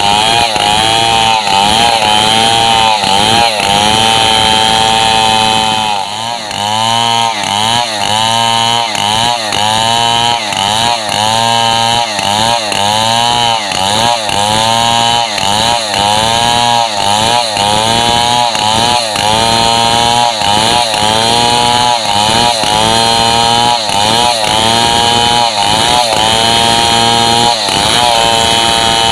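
Stihl MS 070 two-stroke chainsaw sawing a squared gmelina timber lengthwise under load. For about six seconds it runs steadily; after that its engine pitch dips and recovers about once a second as the cut goes on.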